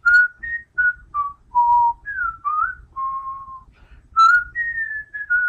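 A person whistling a tune: a string of clear notes, some held steady and some sliding up or down.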